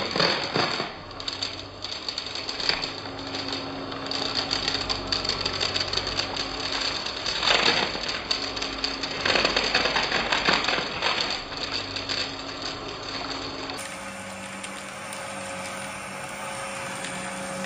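Shark upright vacuum cleaner running over carpet, its motor humming under a crackle and crunch of debris being sucked up, with the sound swelling as the head is pushed back and forth. About 14 seconds in, the sound changes abruptly to a smoother, steadier motor drone with fewer clicks.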